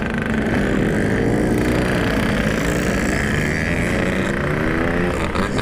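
Two-stroke motorcycle engines running in slow traffic, their revs rising and falling several times as the bikes pull away.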